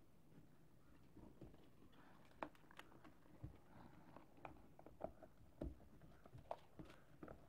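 Light, irregular clicks and taps of a plastic project enclosure being handled and its lid fitted shut, starting about a second in.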